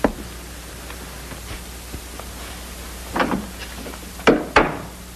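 Several sharp knocks and thuds over a steady hiss: one at the start, a short cluster a little after three seconds in, and two loud ones close together past four seconds.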